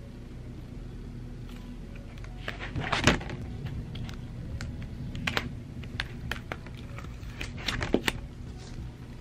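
Iron-on vinyl being weeded with a metal weeding hook: scattered scratches, clicks and crackles as the hook picks the vinyl and pulls scraps off its carrier sheet, loudest about three seconds in and again near eight seconds.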